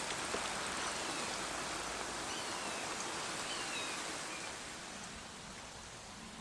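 Steady outdoor hiss of breeze through roadside hedges and trees, with a few faint high bird chirps in the middle, dropping a little in level near the end.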